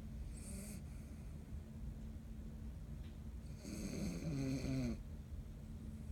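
Snoring: a short, fainter snore near the start and one louder, longer snore about four seconds in.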